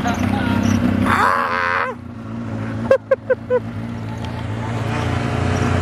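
Yamaha snowmobile engine running steadily underway. A person's voice rings out briefly about a second in, and a quick run of four short vocal calls comes near the middle, the loudest moments.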